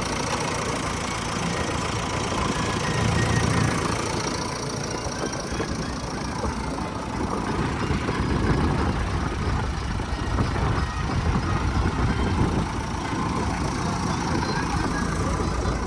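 A diesel engine of a heavy machine idling steadily.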